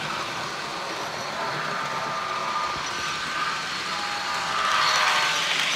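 Rapido HO-scale Amtrak F40PH model locomotive and passenger cars running on model track, a steady rolling rumble with a thin whine over it. It gets louder about five seconds in as the train passes close by.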